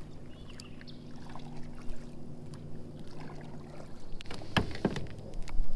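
Fishing kayak under way, its drive giving a steady low hum that stops about four seconds in, followed by a few sharp knocks.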